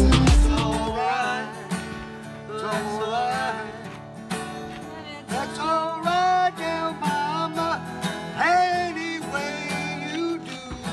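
Country song with a singing voice over acoustic guitar. A louder, bass-heavy track cuts out about a second in.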